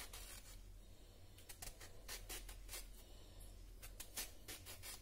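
A knife cutting pieces off a peeled raw mango: a faint series of short, irregular scraping cuts through the firm flesh.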